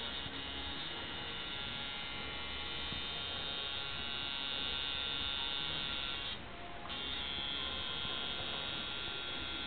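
Electric tattoo machine buzzing steadily as its needle works ink into skin, with a brief drop in level a little past six seconds in.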